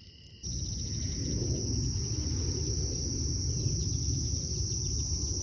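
Steady high-pitched insect trilling, like crickets, over a low rumbling noise; both come in suddenly about half a second in.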